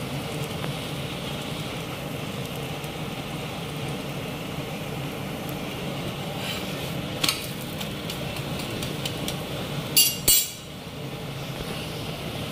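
Aloo paratha frying in ghee on a tawa, a steady sizzle. There is a sharp click about seven seconds in, and two loud metallic knocks about ten seconds in.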